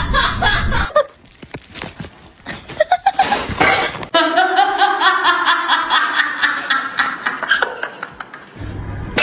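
Laughter: a few short bursts, then from about four seconds in a long run of rapid, pitched pulses.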